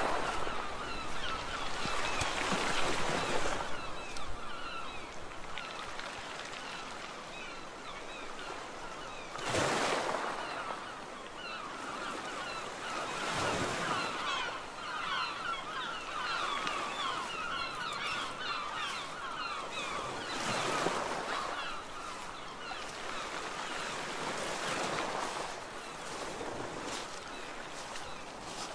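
Sea waves washing onto a beach in surges every few seconds, under a steady chatter of many short bird calls.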